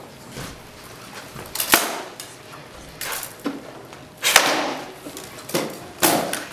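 Rattan weapons striking a shield and armour in armoured combat: about six sharp cracks and thuds, unevenly spaced. The loudest blow comes a little over four seconds in.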